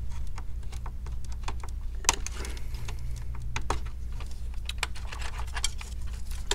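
Small plastic clicks and scratches of gloved fingers working a ribbon cable's connector loose from a computer motherboard, with one sharper click about two seconds in. A steady low hum runs underneath.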